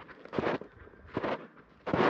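Footsteps crunching in snow at a steady walking pace: three short crunches a little under a second apart.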